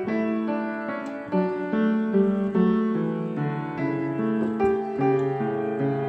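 Background piano music: a gentle melody of held notes that change every half second or so.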